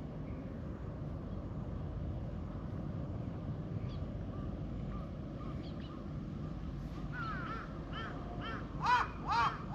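A crow cawing in a quick series of short calls, about two a second, starting faintly and growing louder near the end, over a steady low background rumble.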